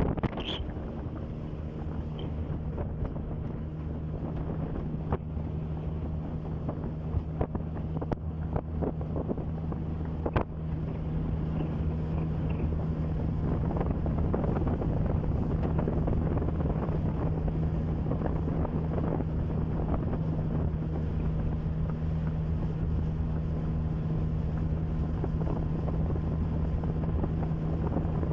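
Outboard motor of a small boat running steadily under way, a little louder from about ten seconds in, with wind buffeting the microphone and a few light knocks early on.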